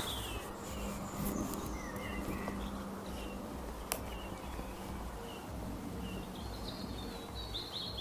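Outdoor field recording of birds chirping: short, scattered chirps throughout, with a single sharp click about four seconds in.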